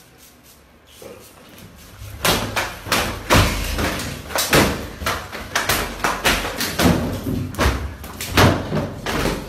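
A commotion of loud, irregular bangs and thuds that starts about two seconds in and goes on in rapid succession.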